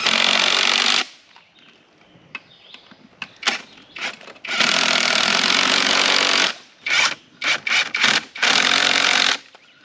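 Power drill running in repeated spurts as bolts are driven to fasten a wooden wheel onto an ATV hub: a run of about a second at the start, a longer run of about two seconds midway, then several short bursts and a final run near the end.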